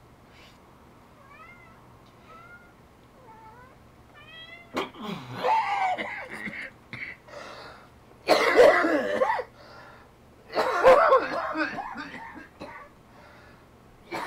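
Domestic cat meowing three times, long drawn-out multi-part meows about five, eight and eleven seconds in, the kind its owner hears as "I love you".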